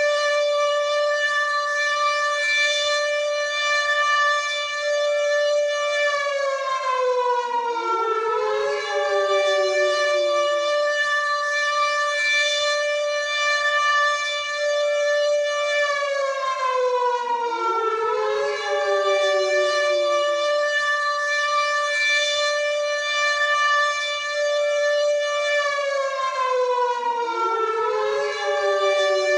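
WW2-style air raid siren wailing: it holds a steady high pitch for about six seconds, then slides down while a new rise sweeps back up over it. The cycle repeats about every ten seconds, three times.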